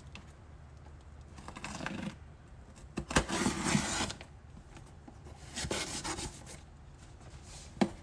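Packing tape on a cardboard shipping box being slit along the lid seam and worked open by hand: a few scraping, tearing bursts of about a second each, the loudest a little past three seconds in, with a sharp click at its start and another near the end.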